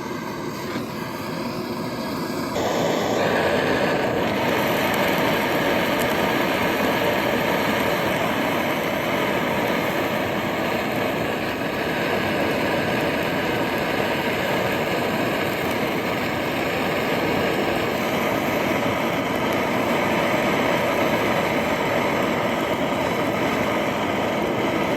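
Blowtorch flame burning steadily, heating a bulldozer's frozen starter to thaw it free. It gets louder about two and a half seconds in.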